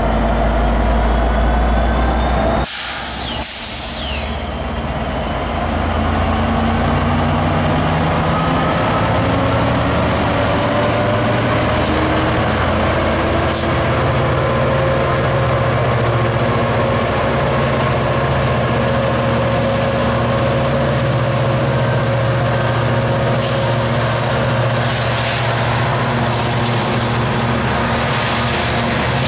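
Departing Coaster commuter train. About three seconds in comes a loud hiss of air, typical of an air brake release. From about six seconds in, the F59PHI diesel locomotive's 12-cylinder EMD 710 engine pulls under load as the bilevel cars roll past.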